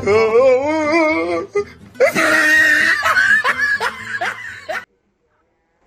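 Edited-in comedy sound effects: a wobbling, warbling musical tone, then laughter in quick pulses. The audio cuts to dead silence near the end.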